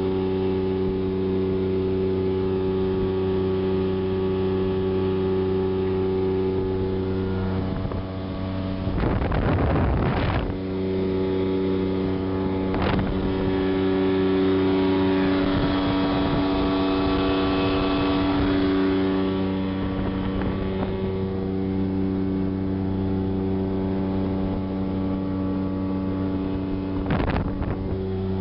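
1979 Volvo Penta 400 outboard motor running at a steady speed, pushing the speedboat across the water with water rushing past the hull. Short bursts of rushing noise break in about nine seconds in, again around thirteen seconds, and near the end.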